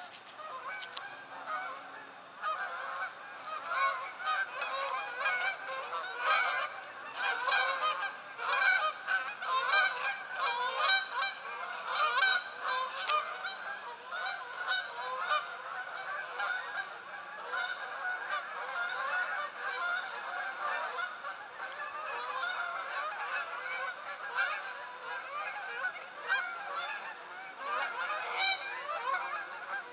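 A flock of geese flying overhead, honking constantly with many calls overlapping, busiest and loudest in the first half.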